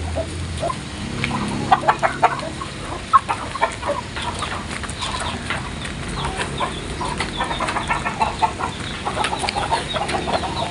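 A flock of Indonesian village chickens (ayam kampung) clucking while feeding, with many short, quick ticks as they peck.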